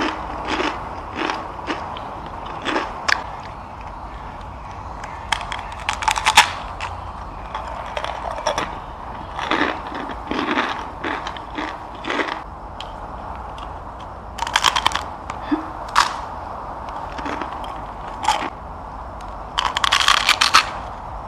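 Biting and chewing a dry, raw instant noodle block (科学麵 snack noodles): crisp crunches come in irregular bursts every second or two, some as single cracks and some as quick runs of crackles, over a steady low hum.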